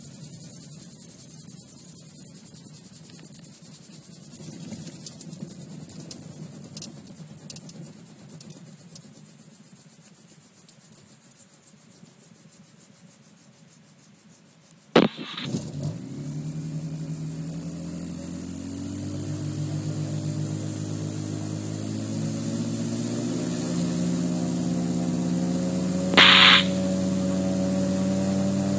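The RAF 2000 gyroplane's engine is restarted after a dead-stick landing. A faint hum fades, a sharp click comes about halfway through, and the engine catches. Its pitch then climbs steadily as power is brought up, with one short, loud, high-pitched burst near the end.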